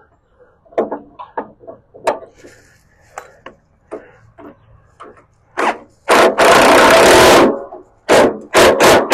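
Cordless impact wrench spinning the nut on a mower deck-wheel bolt: a short burst, then one run of about a second and a half, then three quick trigger pulses near the end. Before it runs, light clinks and knocks as the socket is fitted onto the nut.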